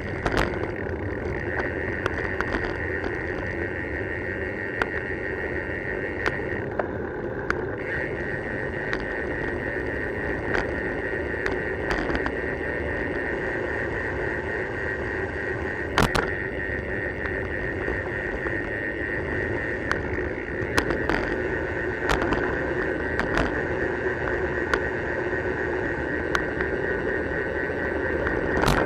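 Riding noise from a road bicycle on tarmac, heard through a camera mounted on the bike: steady tyre and wind rush with a continuous high buzz, broken by scattered sharp knocks from bumps in the road surface.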